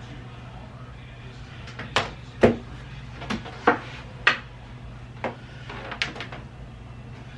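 A series of sharp knocks and clacks, about seven in four seconds, the loudest about two and a half seconds in, over a steady low hum: objects being handled and set down, with cupboard or drawer sounds likely among them.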